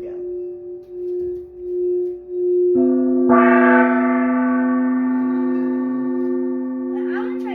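Singing bowls ringing. One bowl hums steadily with a slow waver. About three seconds in, more bowls are struck, adding a lower tone and bright overtones that slowly fade.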